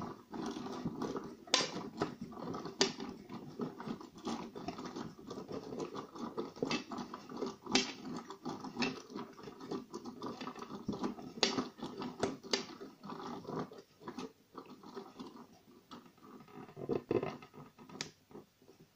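Gear train of a hand-turned model of the Antikythera mechanism, clicking and rattling continuously as it runs the sun and moon pointers around the dial, with a few sharper clicks here and there.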